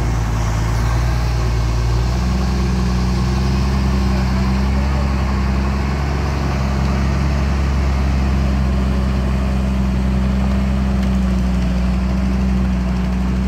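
Diesel engine of a Hino FM truck tractor running steadily while it pulls a loaded trailer slowly. About two seconds in, the engine note steps up in pitch and then holds steady.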